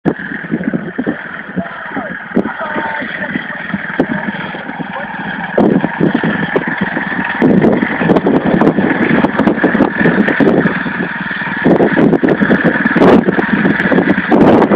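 Small engine of a ride-on lawn tractor running hard on a hill climb, getting louder in steps about a third and halfway through.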